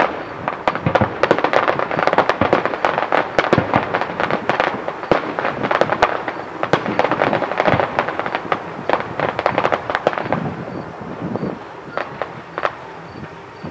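Aerial fireworks going off in rapid, dense volleys of sharp cracks and bangs, thinning out about ten seconds in to a few single pops.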